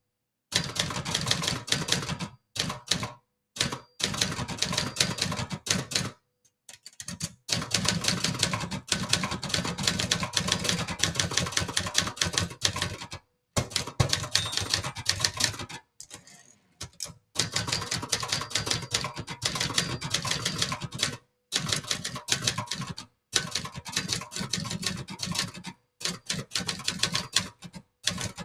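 Brother Charger 11 portable manual typewriter being typed on at a brisk pace: fast runs of sharp key-and-typebar clacks against the platen, in bursts broken by several short pauses, the longest about six and sixteen seconds in.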